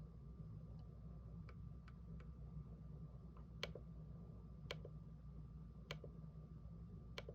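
Faint sharp clicks over a low steady hum. Small scattered clicks come first, then from about halfway in a few louder ones arrive roughly a second apart.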